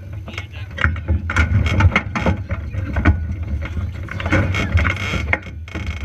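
Handling noise in a sprint car cockpit: a firesuit brushing and bumping against the in-car camera, with many short knocks and clicks, as the driver climbs out. A steady low rumble runs underneath.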